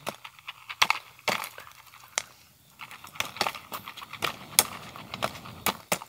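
Popcorn kernels popping inside a foil stovetop-popcorn pan held over a wood fire: sharp, irregular pops, a dozen or so, thinning out briefly partway through.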